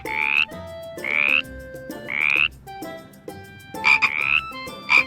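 A frog croaking: about half a dozen short calls, each about half a second long and rising slightly in pitch, coming about once a second, with a brief gap and then a quick double call.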